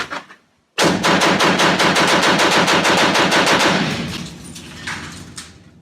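Automatic gunfire: a rapid full-auto burst of about three seconds that starts abruptly and fades out into an echoing rumble, with a short extra burst near the end.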